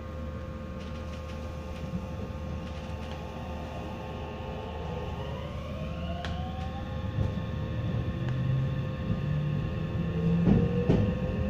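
Meitetsu 3150 series electric train pulling away: the inverter-driven traction motors whine, and several tones rise in pitch together between about four and seven seconds in, then hold steady as the train gathers speed. Lower tones climb in steps later on, with a few wheel knocks near the end.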